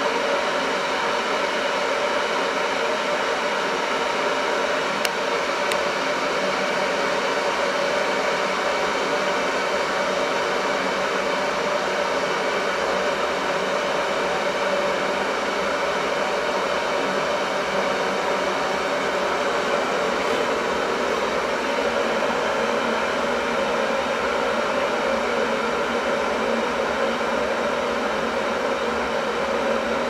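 A steady, even rushing noise with a faint hum mixed in, unchanging throughout.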